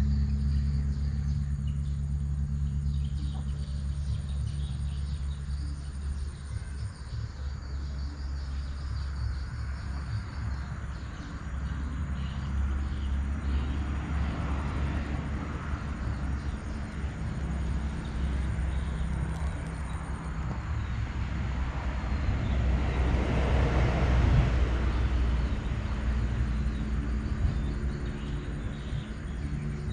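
Low rumble of traffic on a nearby highway. One vehicle's noise swells and fades, loudest about three-quarters of the way through.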